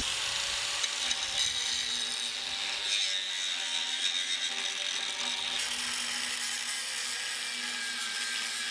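Angle grinder with its whine held steady, its disc grinding into a steel weld bead to cut out a run of pinhole porosity. The grinding noise grows harsher about five and a half seconds in as the disc bites harder.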